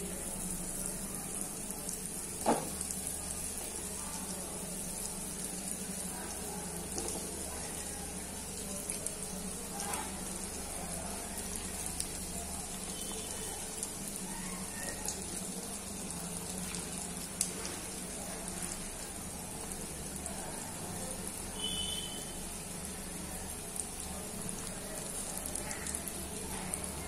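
Chicken meatballs deep-frying in hot oil in an aluminium kadai: a steady sizzle of bubbling oil, with a sharp knock about two and a half seconds in and a few lighter clicks.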